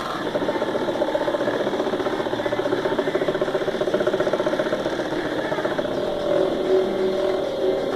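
Hobby CNC machine's stepper motors running: a steady, fast-pulsing motor buzz whose pitch shifts a few times in the last couple of seconds as the axes change moves.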